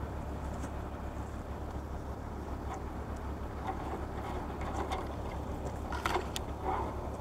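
Crane engine running steadily with a low rumble, with a few faint knocks and clicks about six seconds in.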